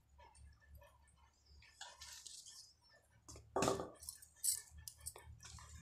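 Light clinks and scrapes of metal kitchenware, with one louder clatter a little past halfway.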